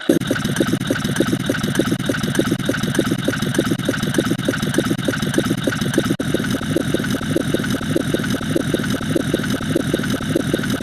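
An engine-like running sound: a rapid, even pulsing that holds steady throughout, with a momentary cut about six seconds in.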